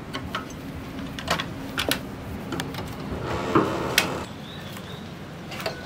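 Irregular metallic clicks and taps of a long screwdriver working among the ignition coils on a motorcycle's four-cylinder engine, with a louder clatter about three and a half seconds in.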